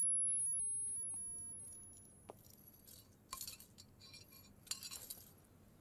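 A slap sound effect dying away in a long echo, with a thin high ringing tone that fades about a second in. Then a few faint clinks of a drinking glass being handled.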